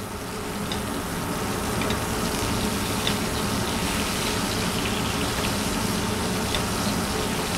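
Sirloin steak sizzling in hot oil in a skillet as the oil is spooned over it to baste it: a steady frying hiss with a few small pops.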